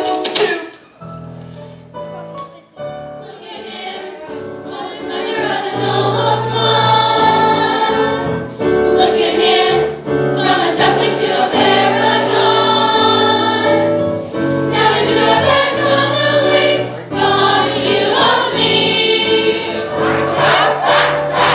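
A musical-theatre cast singing together as a chorus. It is softer for the first few seconds, then builds to full voice and holds there.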